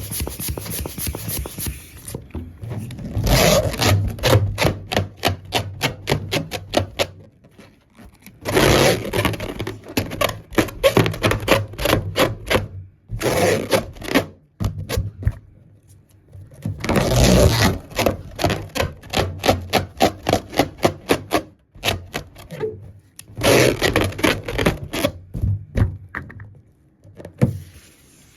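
Rubber balloons being handled: bursts of rubbing and scraping with runs of rapid sharp clicks and knocks, recurring every few seconds.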